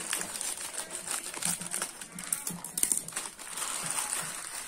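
Plastic Indomie Mi Goreng instant-noodle packet crinkling as it is snipped open with scissors and handled, a run of irregular sharp crackles.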